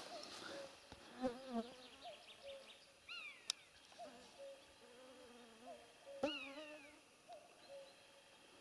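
Mosquitoes whining around the microphone, their thin drone coming and going. Two short falling calls stand out above it, about three seconds apart.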